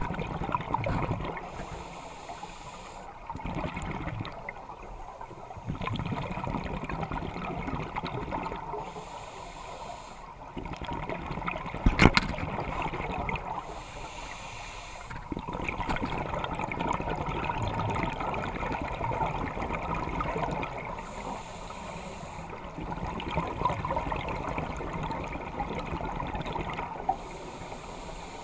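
Scuba diver breathing underwater through a regulator: short hissing breaths about every six seconds between stretches of gurgling exhaled bubbles. One sharp click about twelve seconds in.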